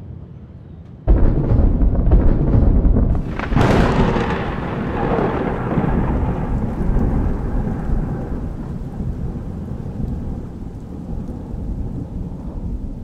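Close thunder: a sudden loud clap about a second in, a sharper crack a couple of seconds later, then a long rolling rumble that slowly fades. Rain falls throughout.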